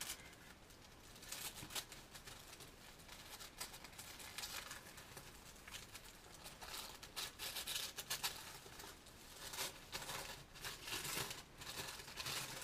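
Gift wrapping paper being crinkled and torn open by hand: faint, irregular rustles and small tearing crackles.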